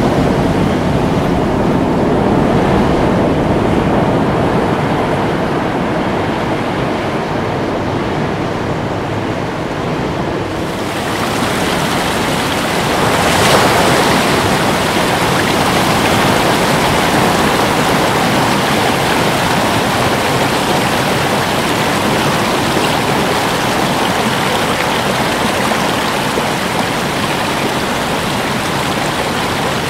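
Ocean surf: a steady wash of breaking waves and foam. About eleven seconds in the sound turns brighter and hissier, and a wave breaks a couple of seconds later.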